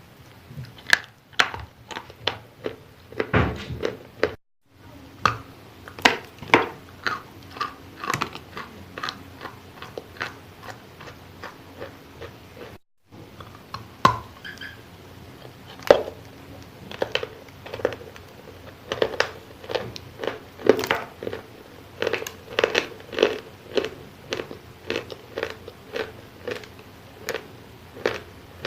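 Close-miked chewing of wet chalk: a steady run of sharp, moist crunches, several a second, with two brief silent breaks.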